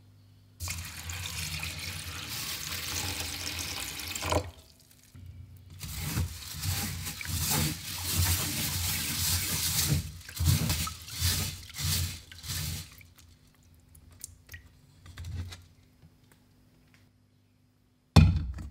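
Rice being washed by hand in water in a stainless steel mesh strainer: a steady rush of running water at first, then irregular swishing and sloshing as fingers rub the grains, and a short loud splash near the end.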